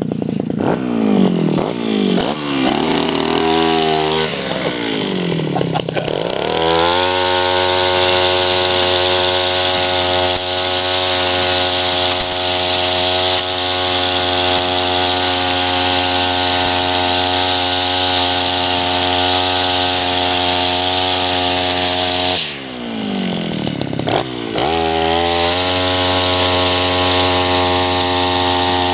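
Tabata 32 cc two-stroke backpack brush cutter, with an eight-line nylon trimmer head, cutting tall grass. The engine revs up and down several times in the first six seconds, then holds a steady high note at full throttle. About twenty-two seconds in it drops back briefly, then revs up to full speed again.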